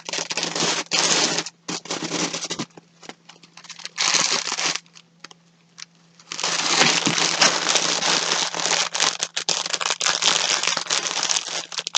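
Packaging crinkling and rustling as skeins of yarn are handled: short bursts in the first half, a brief lull, then steady crinkling through the second half.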